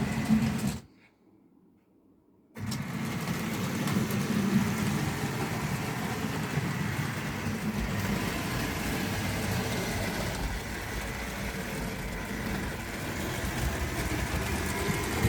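Tri-ang OO-gauge model train running along the track: a steady whirr of the locomotive's motor with the rattle of the wheels on the rails. It cuts out for a second or so near the start, then runs on evenly.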